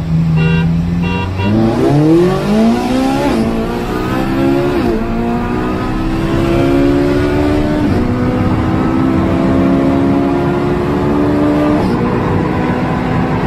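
Car engine at full throttle, heard from inside the cabin. It pulls up from a steady cruise, and its pitch climbs and then drops at each of about four upshifts, the later gears rising more slowly.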